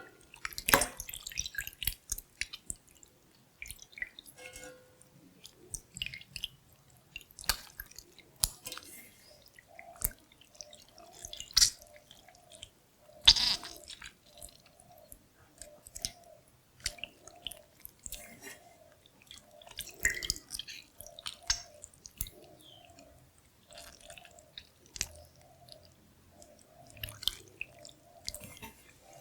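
Kombucha SCOBY being handled close to the microphone: irregular wet, sticky squelches and drips.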